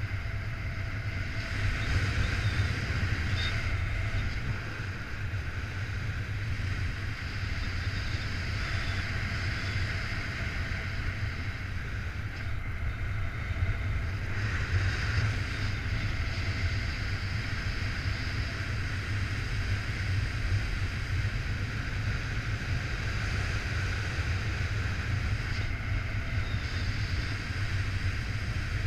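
Wind rushing over the microphone of a camera on a paraglider in soaring flight: a steady rush with a deep rumble, swelling slightly about two seconds in and again about fifteen seconds in.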